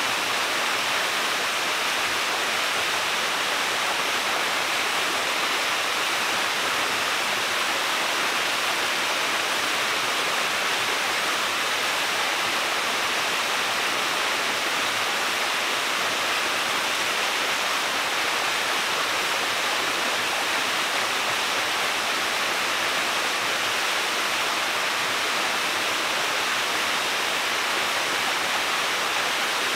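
Waterfall heard from its base: a steady rush of falling water, hissy and even, with no change in level.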